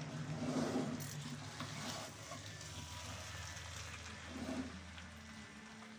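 Spatula stirring and turning cooked rice in a nonstick pan, with a faint sizzle and a steady low hum underneath.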